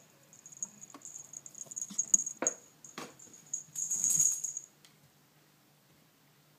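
A few sharp clicks and knocks under a thin high ringing, ending in a short metallic jingling rattle.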